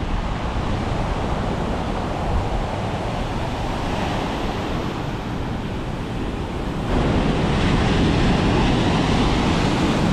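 Heavy storm surf breaking and washing on the beach, with wind buffeting the microphone; it grows louder about seven seconds in.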